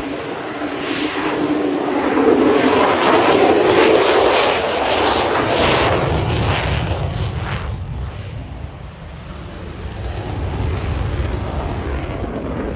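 A jet engine passing close at high power, the noise building over a couple of seconds and staying loud. About two-thirds of the way through, its high-pitched part cuts off abruptly, leaving a low rumble.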